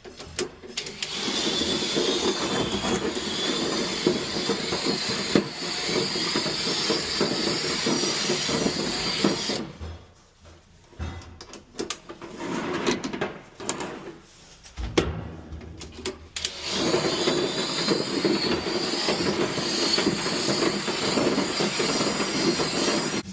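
Drill spinning a rotary dryer-vent brush on flexible rods inside the duct, a steady whirring scrape with a faint wavering whine. It stops about ten seconds in, with a few knocks, and starts again a few seconds later.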